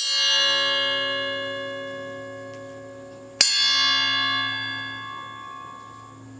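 A hanging flat steel bar struck twice with a ribbed steel rod, once at the start and again about three and a half seconds later, each strike ringing like a bell with many overtones and fading slowly.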